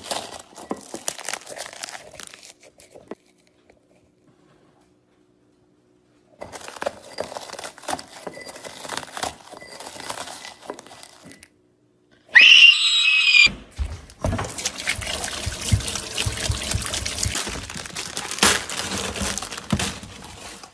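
Crunchy chewing of crisp chips in two stretches with a pause between. Then a brief, loud high-pitched sound, followed by a long, steady rushing noise.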